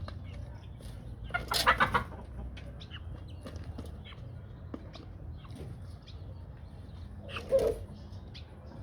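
Aseel chickens clucking: a loud run of calls about a second and a half in, and a shorter call near the end, with faint chirps and small ticks in between.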